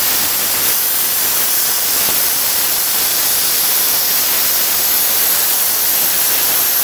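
60C plasma cutter with built-in air compressor cutting stainless steel sheet: a loud, steady hiss of the plasma arc and air jet, unbroken throughout.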